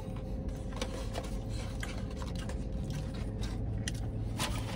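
Scattered small clicks and rustles of someone chewing French fries and handling food packaging, over a steady low hum inside a parked car.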